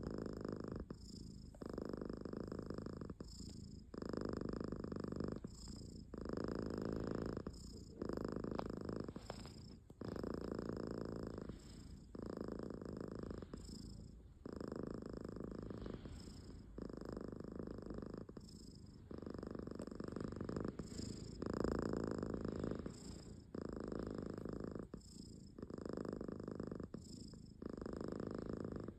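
Domestic cat snoring with a pig-like rasp on each breath, repeating about every two seconds.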